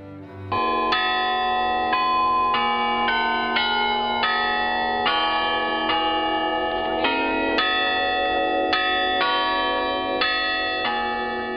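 Church bells ringing a run of notes, a new strike about every half second, starting about half a second in and fading near the end.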